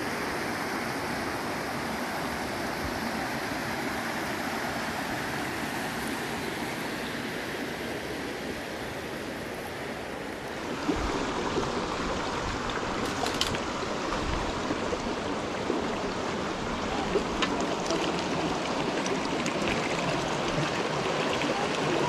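Mountain river rushing steadily over rocks. About halfway through the sound shifts a little louder, and scattered short splashes and knocks come through over the water.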